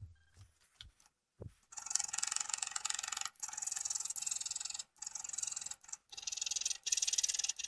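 Hand scraping of the worn dovetail of a Schaublin 102 compound slide, played back five times faster, so the scraper strokes run together into a rapid, high-pitched rasping that starts about two seconds in and breaks off briefly four times. A few faint clicks come before it.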